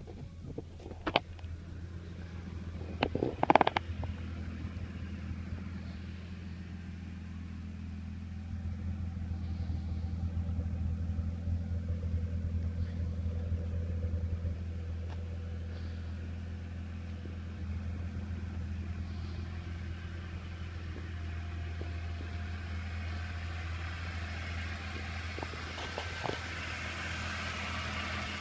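Car engine idling steadily with a low, even hum, with a few sharp knocks and clatters in the first four seconds.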